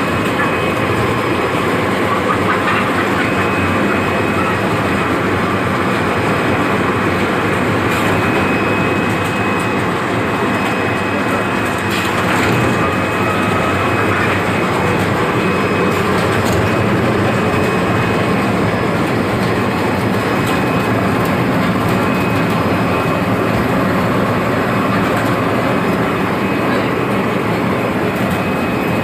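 Automatic chicken scalding and plucking machine running: a loud, steady mechanical din with a faint high whine that comes and goes.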